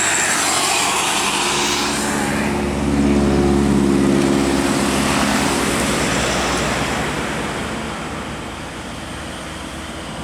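A large diesel bus driving past: a steady engine drone that grows loudest a few seconds in, then fades away as it goes.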